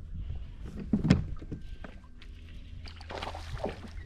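Water and kayak-hull sounds while fighting a hooked bass, with a steady low wind rumble. A loud thump comes about a second in, and a splashy hiss follows between about three and four seconds in.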